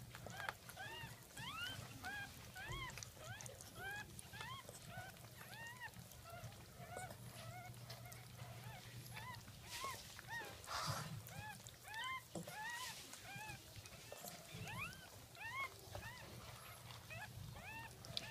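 Newborn Jack Russell terrier puppies squeaking: short, high, arching cries, several a second, overlapping one another, with a faint low hum underneath.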